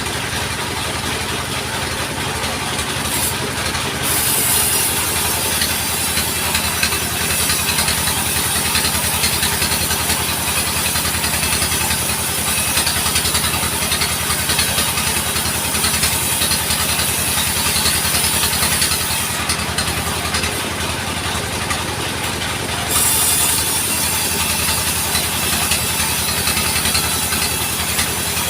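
Sawmill engine running steadily. A high hiss from the saw cutting wood starts about four seconds in, drops away for a few seconds past the middle, and comes back for the rest.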